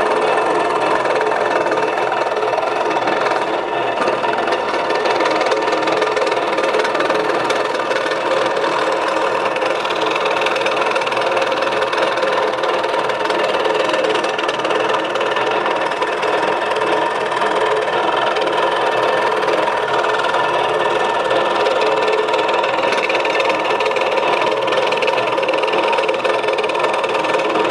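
Scroll saw running steadily, its blade stroking up and down as it cuts a curve in a wooden board, a continuous mechanical hum and buzz.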